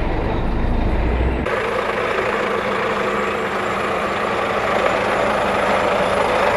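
Diesel engine of a loaded Volvo FH log truck running steadily at low speed. About a second and a half in, the sound changes abruptly from a deep, low rumble to a brighter engine sound with less bass.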